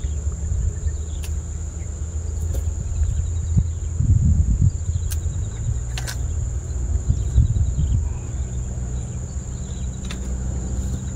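Steady high-pitched drone of insects, with a low rumble of wind on the microphone that gusts twice, and a few sharp clicks.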